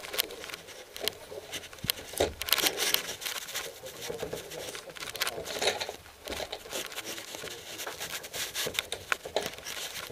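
Close rustling and scraping with scattered light knocks and clicks: clothing and gear rubbing and shifting while the shooter handles his scoped hunting rifle in a wooden shooting box.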